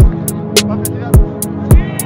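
Background music with a steady kick-drum beat, a little under two beats a second, with hi-hats and sustained synth tones.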